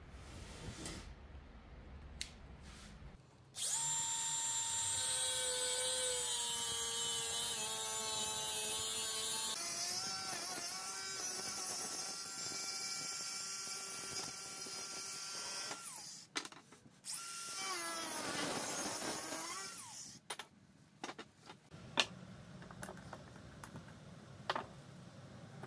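Angle grinder with a cut-off disc cutting through square steel tube: a steady, loud whining grind that starts suddenly a few seconds in and runs for about twelve seconds. After a short break it runs again for about three seconds, and a few clicks and knocks follow near the end.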